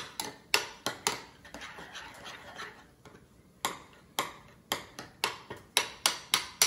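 Metal spoon stirring oatmeal in a ceramic bowl, clinking against the side of the bowl about twice a second, with a quieter stretch about halfway through.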